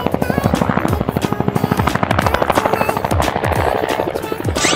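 Cartoon helicopter rotor sound effect: a rapid, steady chopping, over a background music track.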